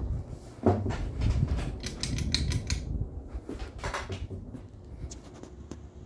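Harbor Breeze Calera ceiling fan running with a low hum, overlaid by a loud run of irregular clattering clicks and knocks from about half a second in until about four seconds in, with a few more clicks near the end.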